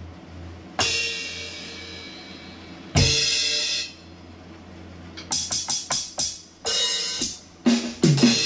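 Alesis Nitro Mesh electronic drum kit being played: cymbal crashes ring out about a second in and again at three seconds, then a quick run of drum hits, another crash and low drum hits near the end.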